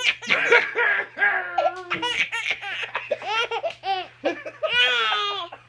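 A baby laughing hard: a string of short, high-pitched laughs several a second, then one longer, higher laugh near the end.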